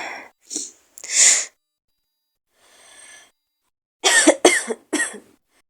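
A woman with a cold breathes in twice with short noisy breaths, then coughs three times in quick succession near the end.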